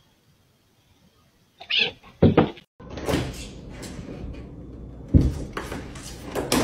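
A cat jumping up and hanging from a lever door handle, rattling the handle and knocking against the door, with a hard knock about five seconds in. Before this, after near silence, there are a few loud sudden knocks about two seconds in.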